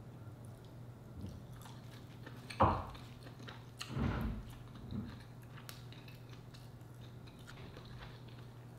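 Close-miked eating sounds: a mouthful of rice taken by hand, bitten and chewed, with short sharp mouth sounds about two and a half seconds in and again around four and five seconds in.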